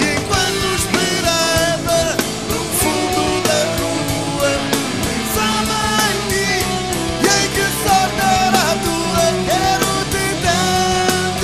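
Live rock band playing loudly: drums, electric guitars and bass, with a melodic lead line over the top.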